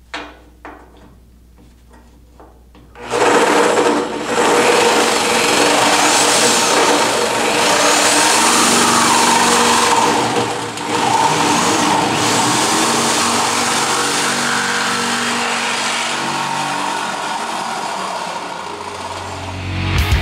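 Corded reciprocating saw cutting through the sheet-steel side of a Ford F100 pickup bed. It starts about three seconds in and runs steadily and loudly, easing off briefly twice.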